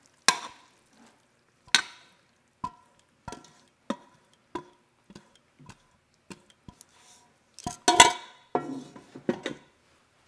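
Metal pressure-cooker inner pot being knocked and scraped with a utensil as pasta is emptied out of it: a string of separate clinks and knocks, some ringing briefly, busiest and loudest about eight seconds in.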